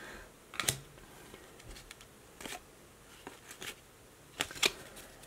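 Hockey trading cards flipped through by hand, one card slid off the stack at a time: several short, soft swishes and flicks of card stock.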